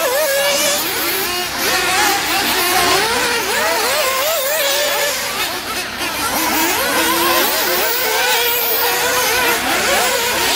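Several nitro RC off-road cars' small two-stroke glow-fuel engines buzzing together. Their overlapping pitches keep rising and falling as the cars throttle up and back off.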